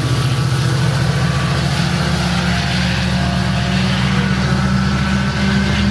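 Metrolink commuter train's diesel locomotive passing close and moving away, its engine giving a steady low drone over the rumble of the wheels on the rails.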